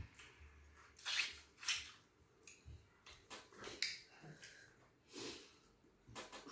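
Eating noises at close range: a string of short, separate mouth sounds and sniffs of breath, about half a dozen spread over a few seconds, as fufu and stew are eaten.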